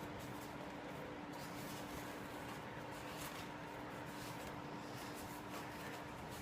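Faint rubbing and squishing of hands working mashed-banana conditioner through wet hair, over a steady low electrical hum.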